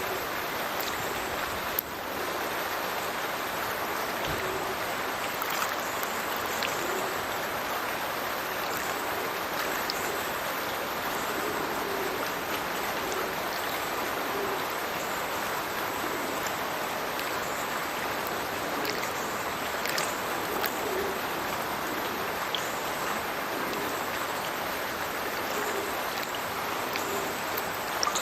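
Stirches Burn pouring from its culvert into the River Teviot: a steady rush of falling water, with short low bubbling notes now and then.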